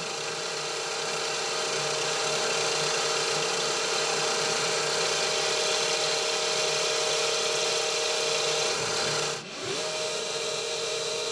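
Small CNC milling machine's spindle running with a steady whine while a drill bit cuts into aluminium plate, with a hiss of cutting over it. About nine and a half seconds in the sound briefly drops out, then the whine rises back up.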